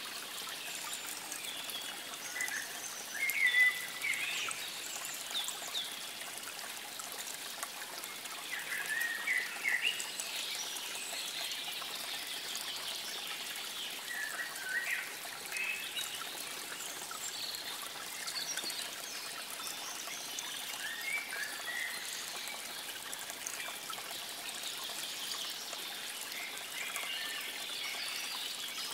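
Water trickling steadily, as a small stream does, with songbirds chirping in several short spells over it.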